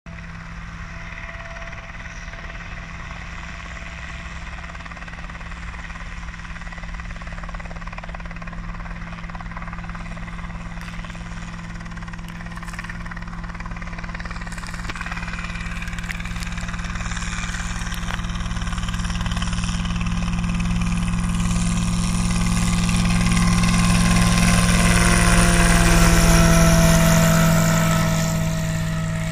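Single-seat homebuilt helicopter, its engine and two-blade rotor running steadily, growing louder as it comes near and easing off slightly near the end.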